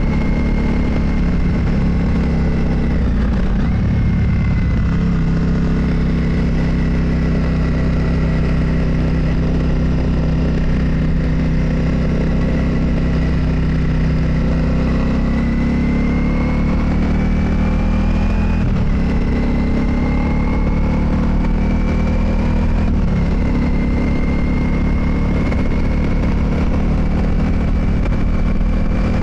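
Motorcycle engine running under way, a steady drone whose pitch climbs slowly and drops back a few times, as at gear changes.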